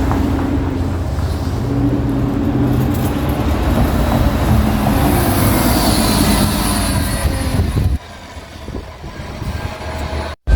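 2016 New Flyer XDE60 diesel-electric hybrid articulated bus under way, heard from inside: a steady hum from the hybrid drive and transmission, with a high whine that rises slightly midway, over road noise. The rider finds this bus's motor and transmission sound weird and off compared with other hybrid articulated buses with Allison transmissions. About eight seconds in the sound drops abruptly to a much quieter hum.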